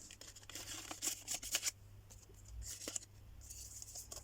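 Paper pages and tucked-in ephemera of a handmade junk journal rustling and scraping as they are turned and handled, in a string of short, irregular flicks.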